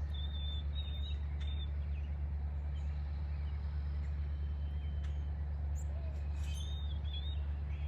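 Small birds chirping, short high notes coming in a few quick runs near the start and again about two-thirds through, over a steady low rumble.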